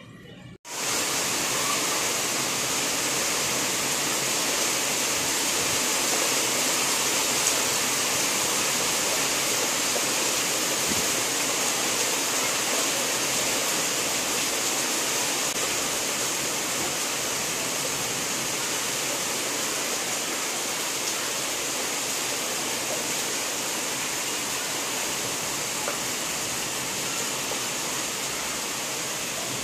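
Heavy rain pouring down steadily on trees and the ground, a dense, even hiss. It starts abruptly just under a second in.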